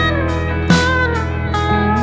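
Background music: slide guitar playing gliding notes over a steady beat.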